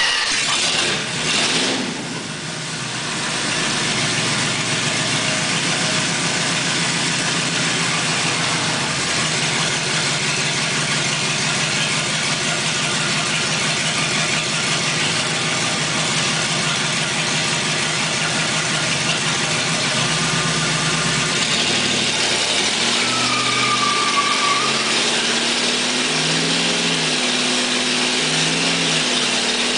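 1979 Plymouth Volare's engine running loud inside a closed garage, held on the brakes and revved into a burnout. A brief tyre squeal comes about three-quarters of the way through. After that the rear tyre spins on the concrete floor and the engine note rises and falls in regular pulses at high revs.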